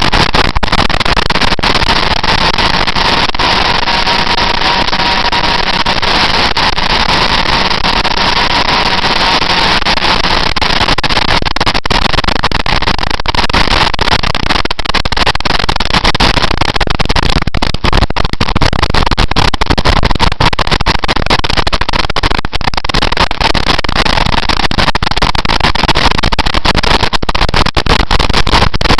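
Loud, steady wind rush over the microphone of a camera riding on a motorcycle at road speed. A faint high whine sits under it for the first third.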